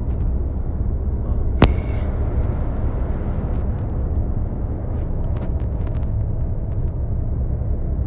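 Steady low rumble of a loaded truck's engine and tyres on the highway, heard from inside the cab while driving, with one sharp click about a second and a half in.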